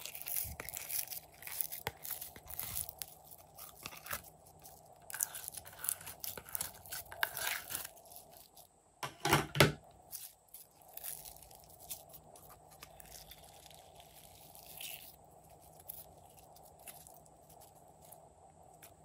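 Glossy slime being peeled out of a tray, squeezed and folded by hand, giving sticky crackling and squishing sounds, busiest in the first half, with one loud squish about halfway through.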